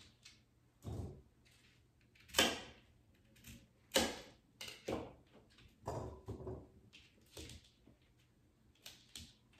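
Kitchen knife cutting through cauliflower florets and striking a plastic cutting board: about a dozen irregular chops, the loudest about two and a half and four seconds in.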